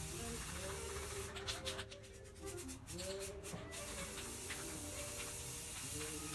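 Aerosol spray paint can spraying: a steady hiss broken by runs of short bursts.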